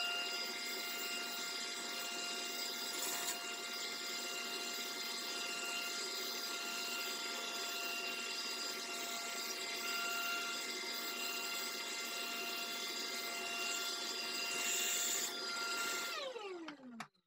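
Shop vacuum running with a steady whine, then switched off about a second before the end, its motor winding down in a falling glide.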